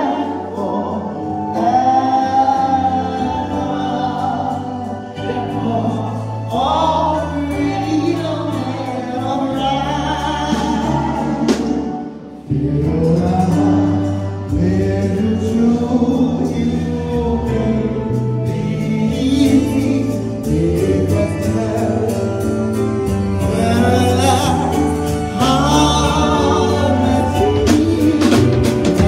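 Gospel singing by a congregation and a male lead singer, accompanied by electronic keyboard, with an abrupt cut about twelve seconds in.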